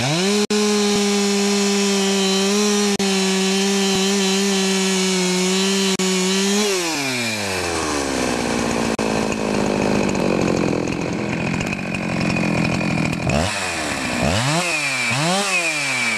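Husqvarna 365 two-stroke chainsaw held at full throttle at a steady high pitch. About seven seconds in, the pitch drops to a lower, rougher running, as when the chain bogs under load in a test cut through wood. Near the end it is revved up and down twice.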